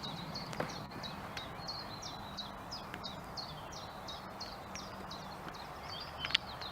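A small songbird singing a long, even series of short, high, repeated notes, about two or three a second.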